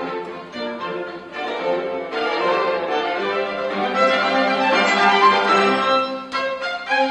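Classical chamber music for bowed strings, a violin leading over cello. The playing grows louder about two seconds in.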